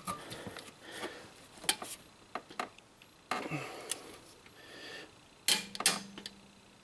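Scattered light clicks and ticks from a torque wrench and its ratchet on the cylinder head bolts as they are brought to final torque. A faint low hum comes in near the end.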